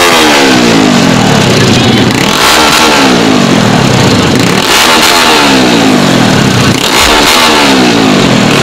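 Small underbone drag-racing motorcycle with a horizontal-cylinder four-stroke engine, bored to 57 mm on the original stroke, being revved hard at the start line. It blips about four times, each rev rising quickly and then falling back.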